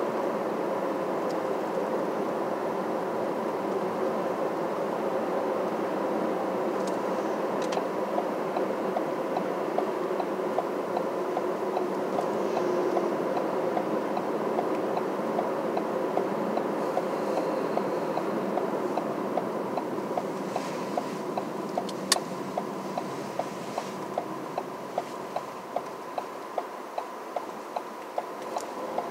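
Steady road and engine noise of a moving vehicle, with a faint hum. A regular ticking about twice a second grows clearer over the second half, and there is one sharp click a little after two-thirds of the way in.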